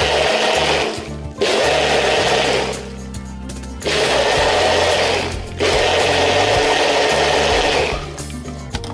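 Countertop blender running in bursts as it purees chunky solids in water: it runs for about a second, cuts out briefly, runs again, pauses for about a second, then runs twice more with a short break between and stops near the end.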